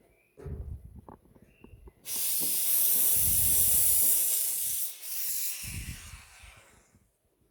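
Espresso machine steam wand on a Ferratti Ferro FCM 3605 blowing off steam, a steady loud hiss lasting about three seconds, with light knocks and clatter of handling before and after it.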